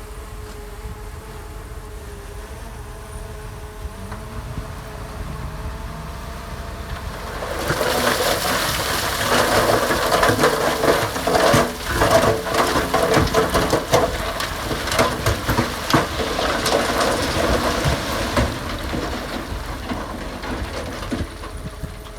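A heavy earthmoving machine's engine running steadily, then about seven seconds in a loud, dense crunching rattle of gravel and stone shifting starts and goes on for over ten seconds before easing off near the end.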